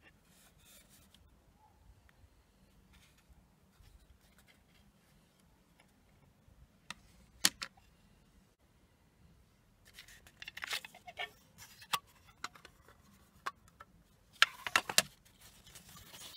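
Plastic cassette case being handled: a single sharp click about halfway through, then clicks and paper rustling as the folded card insert is slid out of the case, loudest near the end.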